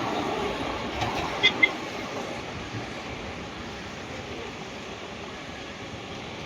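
Train running on the rails, its even rushing noise slowly fading. Two short high-pitched tones sound close together about a second and a half in.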